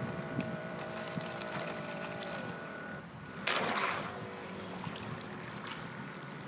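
Radio-controlled model pilot boat's motor running with a steady whine that drops in pitch and cuts off about halfway through. About half a second later comes a short, loud burst of churning water as the propeller kicks up white water at the stern, and the motor then runs on more quietly.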